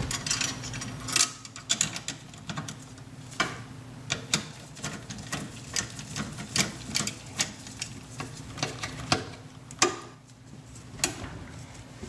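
Irregular metallic clicks and knocks as the motor mount bracket is fitted and fastened back onto a dishwasher's pump motor.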